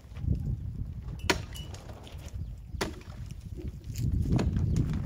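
Sharp blows of a hand tool swung overhead and striking, three of them about a second and a half apart, over a low rumble that grows louder near the end.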